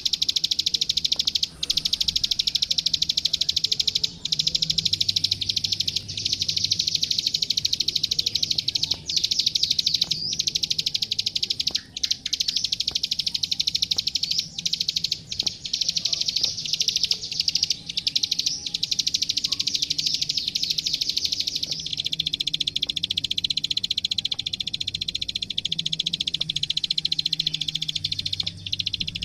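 Klik-klik bird (ciblek sawah, a prinia) singing a long run of very rapid, high-pitched clicking trills with only brief breaks.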